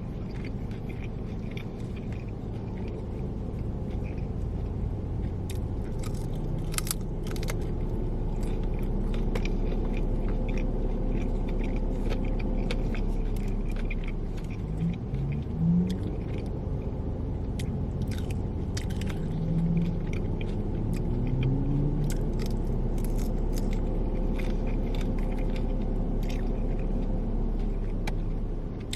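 Close-up crunching and chewing of Flamin' Hot Cheetos-breaded fried chicken wings: irregular sharp crunches throughout, over a steady low rumble.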